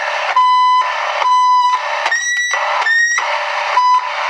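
Toy walkie-talkies switched on: a steady static hiss, with five electronic beeping tones over it, two lower, then two higher that slide slightly upward, then a short lower one.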